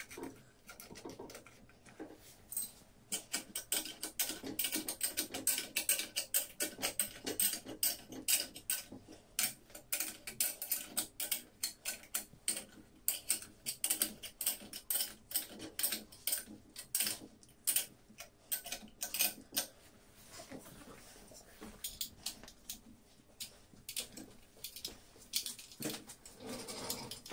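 Spanners and bolts clicking and clattering against the metal clamp fittings of a transmission-line conductor marking light as its nuts are tightened. The clicks come in quick runs through most of the stretch and thin out in the last few seconds.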